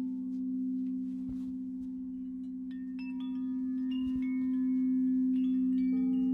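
Crystal singing bowl droning on one steady low tone with a slow pulsing beat. About three seconds in, a series of higher chime-like notes joins it, entering one after another and overlapping, and another lower note comes in near the end.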